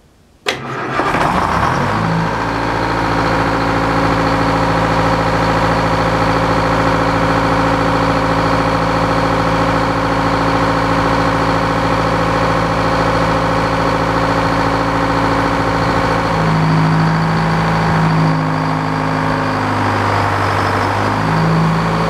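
Engine driving an antique circular sawmill starts about half a second in and settles into a steady run. Between about 16 and 21 seconds its pitch shifts several times as the large circular saw blade is brought up to speed.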